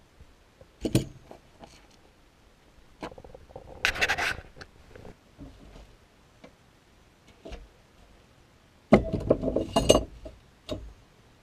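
Metal hand tools clinking and clattering as they are handled and set down on a workbench. Scattered knocks come about a second in and around four seconds in, with a louder, busier clatter near the end.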